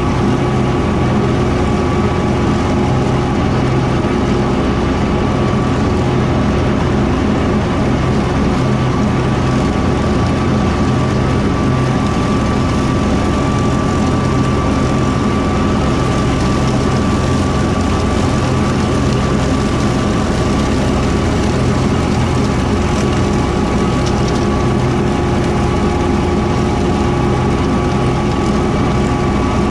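Kubota M4-071D tractor's diesel engine running steadily at working speed while driving a Woods BW12 batwing rotary mower: a constant, unchanging drone with a steady high tone over it.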